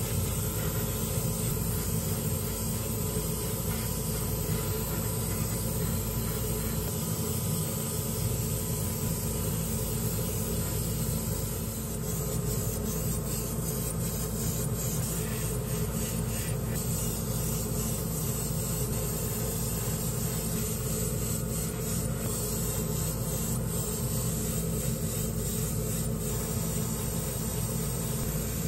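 Airbrush paint-spraying setup running: a steady hum under a continuous hiss of air, with short spells of sharper hiss as the airbrush sprays semi-gloss black lacquer.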